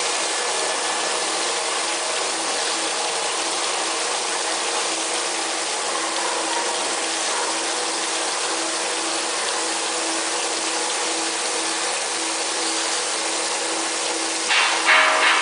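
Induction hardening machine running on a steel shaft: a steady hiss of quench water spray over a hum that pulses about twice a second. Near the end, louder metallic clattering strikes begin.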